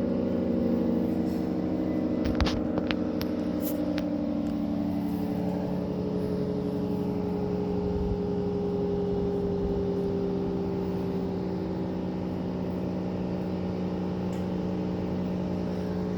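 Federal Signal 3T22 three-tone outdoor warning siren winding down after its test: the rotor coasts slowly, giving a sustained chord of several low tones. A couple of sharp clicks come about two and a half and three and a half seconds in.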